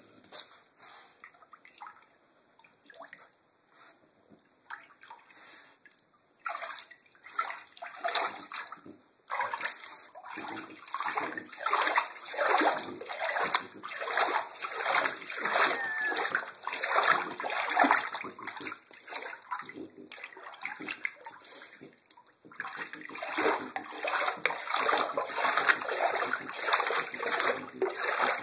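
A French Bulldog splashing about in shallow bathwater in a tub. Soft, scattered sloshes at first, then heavy, rapid splashing from about six seconds in, easing briefly around twenty seconds and picking up again near the end.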